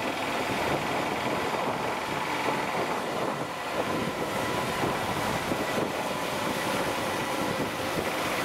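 Steady engine and road noise of a vehicle on the move, mixed with wind noise.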